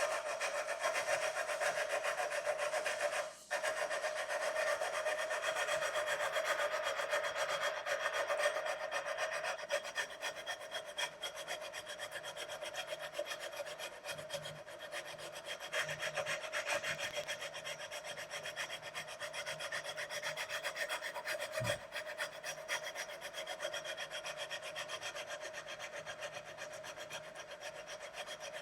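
Sandpaper rubbed back and forth along the metal frets of a 2009 Squier Strat SE neck in fast, continuous scraping strokes, levelling the uneven frets. It breaks off briefly about three seconds in.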